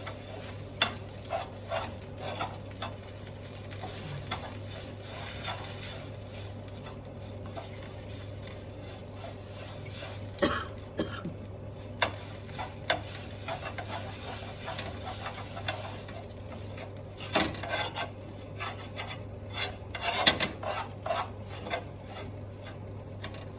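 Ginger with ground ajwain and fennel sizzling in ghee in a non-stick frying pan as its moisture cooks off, stirred with a spoon that scrapes and clicks against the pan at irregular moments.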